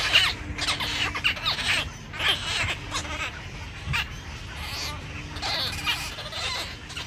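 Birds calling over and over: a string of short, scratchy calls, one every half second to a second, from waterbirds in a wetland.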